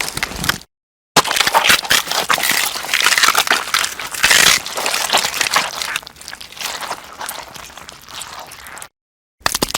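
Gore sound effects: a dense run of crunching and crushing, about seven and a half seconds long, loudest in its first half and quieter after. It is set between short silent gaps, with the tail of one effect at the start and the start of another near the end.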